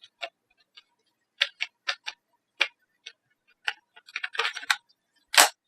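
Battery pack being fitted back into an Acer Aspire One D270 netbook: irregular light plastic clicks and knocks as it is handled and slid into the bay. A short cluster comes about four seconds in, and a louder snap follows near the end.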